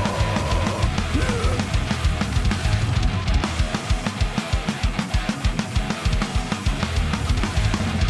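Heavy metal band playing live: distorted electric guitars and bass over drums, with a run of fast, even bass-drum beats through the middle.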